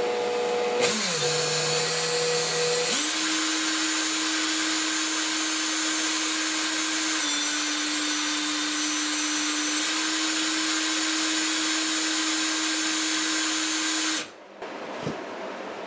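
Makita cordless drill spinning a Singer 306K sewing-machine motor armature while 1000-grit sandpaper is held to its commutator to sand off the varnish-like grime: a steady motor whine with hiss. It speeds up about three seconds in, dips slightly in pitch for a few seconds in the middle, and stops shortly before the end.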